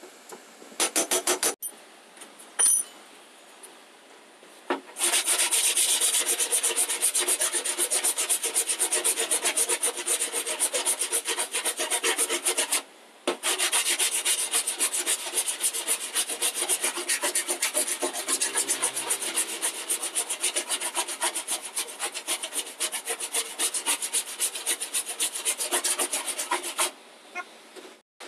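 Hardened body filler on a car door panel being filed down by hand: rapid, rasping back-and-forth strokes. The strokes start about five seconds in, break off briefly about halfway, then carry on until just before the end.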